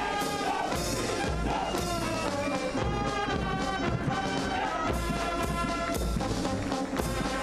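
Military marching band playing a march: brass carries the tune over a regular low drum beat.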